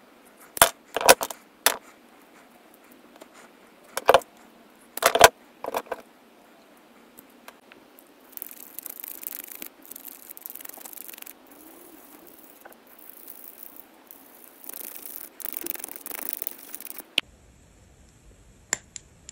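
Scissors snipping through an old leather watch strap, a few sharp cuts in the first six seconds. Then a small brush scrubbing a steel watch case, a hissy scratching in bursts for about nine seconds, with a couple of faint clicks near the end.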